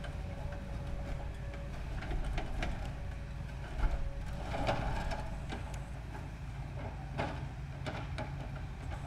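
Tracked excavator's diesel engine running steadily while its demolition grab breaks into a brick wall, with brick and rubble clattering and knocking; one sharp knock about four seconds in.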